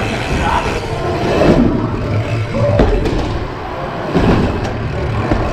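Mountain bike tyres rolling and rumbling over skate-park ramps, with wind buffeting a bike-mounted GoPro's microphone.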